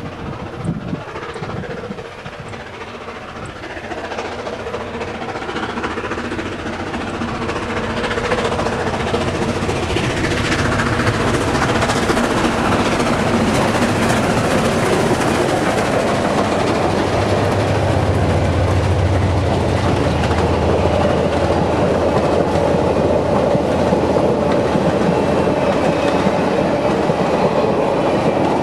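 Southern Pacific 4449, a streamlined 4-8-4 steam locomotive, approaching at speed and passing close, growing steadily louder over the first ten seconds or so. Its passenger train then rolls by with a steady, loud rumble of wheels on rail.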